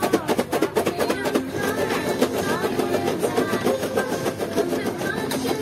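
Background music with quick, clicky percussion and pitched melody lines over it.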